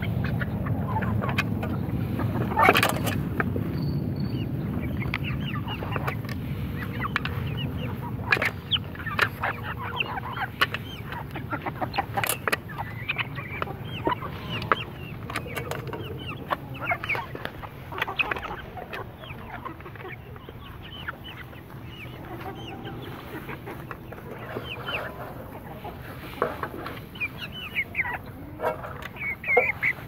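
A flock of hens clucking while they feed, with many quick sharp clicks of beaks pecking at mash in metal feeder pans, over a low rumble that fades after the first several seconds.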